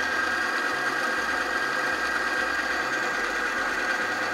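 ASTM G77 pin-on-ring wear-test machine running: its motor spinning the ring against the test pin, with a steady high-pitched whine over a low hum. The lubricant under test is failing badly, and the ring is wearing metal off the pin.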